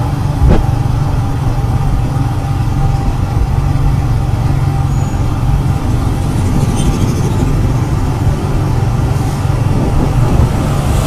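Steady low rumble of a vehicle driving along a paved road, heard from on board, with another vehicle swelling past right at the end.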